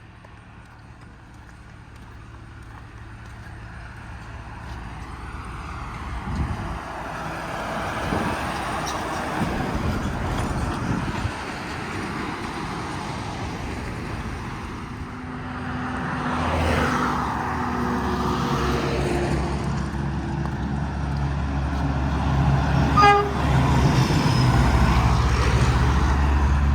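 Roadside traffic: vehicles passing and a heavy truck's engine drawing nearer and growing louder, with a short horn toot near the end.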